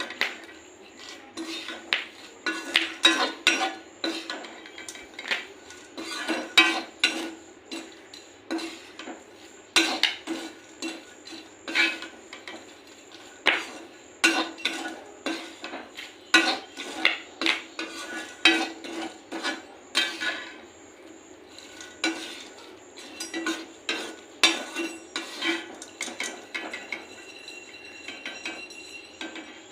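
Peas being stirred in a metal pan with a spoon or spatula while they roast: repeated, irregular clinks and scrapes of utensil on pan.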